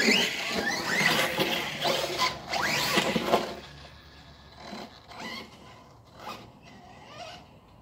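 Electric RC cars' motors whining up in pitch again and again as they accelerate, with sharp clicks and knocks mixed in, for about the first three and a half seconds. Then they drop away to a faint background with a couple of soft knocks.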